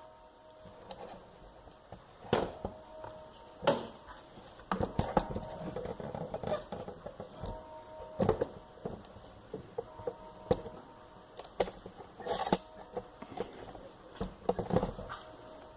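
Irregular clicks and knocks, a dozen or so spread unevenly, of hand tools and metal parts being handled during gearbox work.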